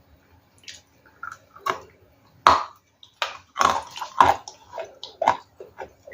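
Ice being bitten and chewed close to the microphone: a run of sharp, irregular crunches, sparse at first and coming thick and loud from about two and a half seconds in.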